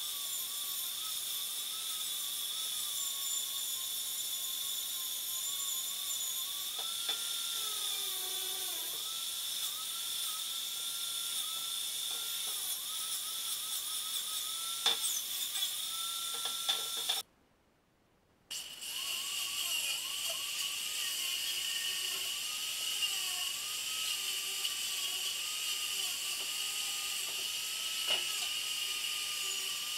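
Electric angle grinder running steadily as it is worked over a metal bench frame, its high whine wavering in pitch as it is pressed on and eased off. About seventeen seconds in it cuts out for about a second, then resumes at a slightly lower pitch.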